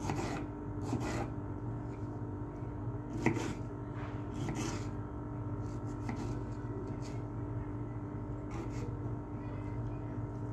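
A spoon scraping and knocking lightly in a frying pan a few times, over a steady low hum.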